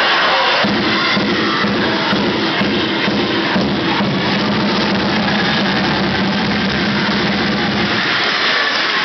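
Steady crowd noise in a large hall with a music-like low pulsing drone over it, which starts about a second in and stops near the end.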